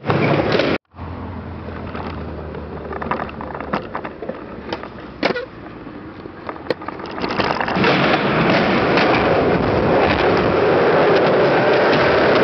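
Skateboard wheels rolling on smooth concrete, with several sharp clacks of the board popping and landing over the middle seconds. About two-thirds of the way through, a louder, steady rolling noise takes over.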